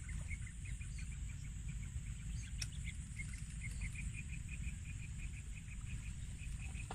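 Insects chirping: a quick, even repeating chirp, about four or five a second, over a steady high insect drone and a low rumble of wind.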